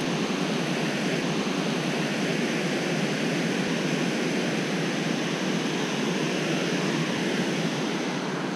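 Steady rush of water pouring over a low mill dam.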